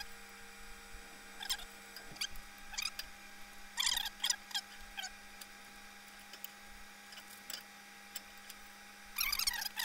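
Scattered light metal clicks and clinks as acorn lug nuts are handled and started by hand on a wheel hub's studs, with a quick run of clicks near the end. A faint steady hum runs underneath.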